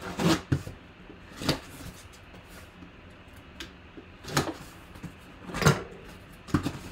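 A cardboard box being cut open and handled: a knife slitting the tape seal, then scattered scrapes, rustles and knocks of the box as it is turned over and set down, the sharpest about five and a half seconds in.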